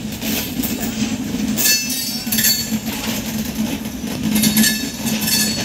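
Passenger train coaches rolling along the rails with a steady rumble. Twice there are spells of high metallic squealing and clinking from the wheels and running gear.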